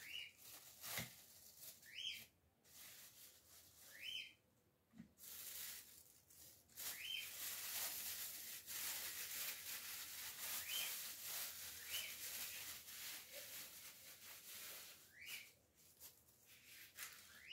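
Plastic bag crinkling and rustling while a wrapped cake is handled, loudest through the middle. Short rising whistles come every two to four seconds throughout.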